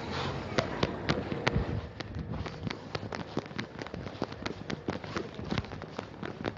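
Irregular sharp crackles and clicks, about three a second, over a low steady hiss.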